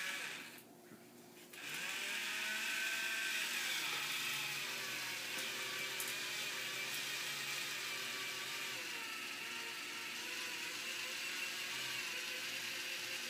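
Electric can opener motor starting up about a second and a half in, then running steadily as it cuts around the lid of a can. Its pitch wavers slightly.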